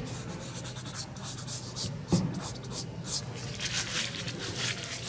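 Fingertips rubbing and dragging over soft pastel on paper, blending it in short, repeated, hissing strokes a few times a second. A single dull knock about two seconds in.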